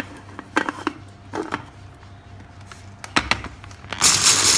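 Small electric food chopper: a few plastic clicks and knocks as the bowl and motor top are fitted, then, about four seconds in, the motor starts in a loud burst, grinding black peppercorns.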